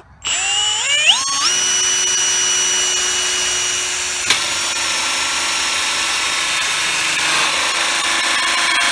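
Cordless drill driving a 2 1/4-inch hole saw through a grated dock decking panel. The motor whines up to speed over the first second or so, then runs steadily as the saw cuts, with a sharp click about four seconds in.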